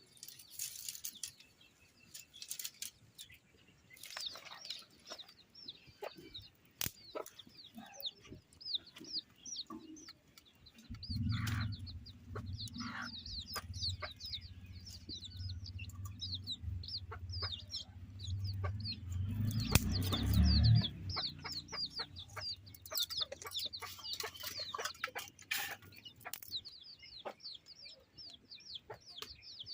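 Domestic chickens clucking, with rapid high chirping through most of the stretch and scattered knocks. A low drone comes in about ten seconds in, swells, then fades out about twenty seconds in.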